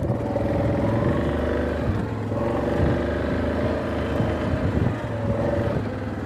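ATV engine running as the quad rides off, its note wavering up and down with the throttle.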